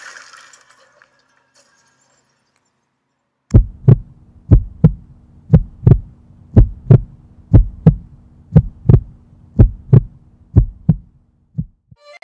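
Heartbeat sound effect: pairs of deep thumps, one pair about every second, over a steady low hum. It starts a few seconds in, after a fading tail of the intro sound and about two seconds of silence, and stops about a second before the end.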